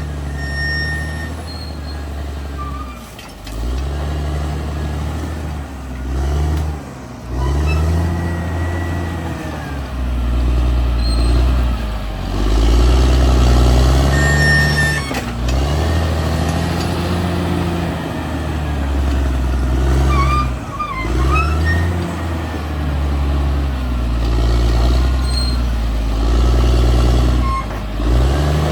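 Caterpillar D6R XL bulldozer's diesel engine working under load, its pitch and loudness rising and falling over and over as it pushes, with a few short dips where it eases off. Brief high squeaks come about two-thirds of the way through.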